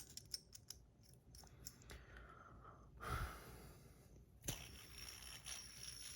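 Faint small clicks and ticks of a metal fidget spinner and its tungsten buttons being handled. A soft breath comes about three seconds in, then a sharper click followed by a faint steady hiss.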